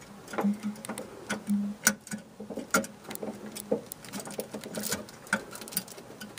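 Irregular small clicks and rattles as a xenon low-beam bulb and its retaining clips are handled and seated in the back of a BMW Z4 headlight housing.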